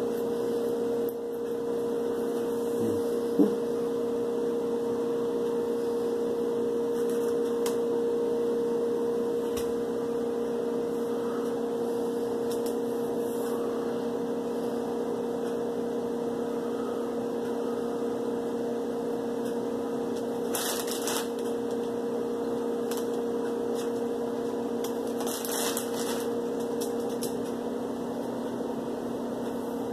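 Steady machine hum from an unseen appliance, with a couple of brief rustles about two-thirds of the way in and again a few seconds later.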